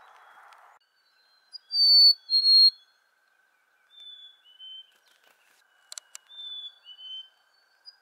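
Black-capped chickadee singing its two-note "hey, sweetie" (fee-bee) whistle. A loud, clear pair comes about two seconds in, the second note a little lower than the first. Two fainter, lower-pitched pairs follow.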